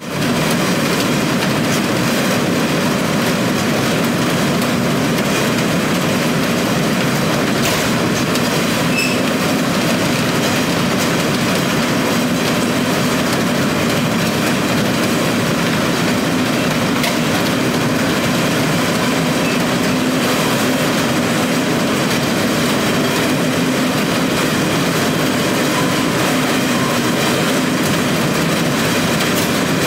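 A hay bale elevator's slatted chain conveyor runs with a steady mechanical clatter, with a few light clicks.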